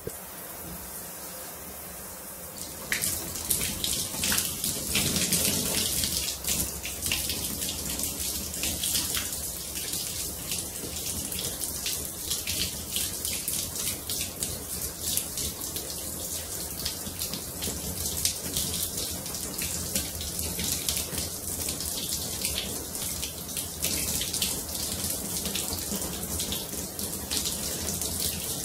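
Handheld shower head spraying water in a steady hiss that splashes onto the tiled wall and over hands rubbing under the spray. About three seconds in it grows louder and splashier and stays so.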